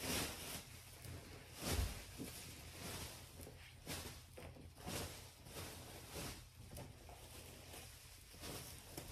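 Faint, scattered footsteps, light knocks and rustling from a person moving about and handling things, with a few soft low thuds.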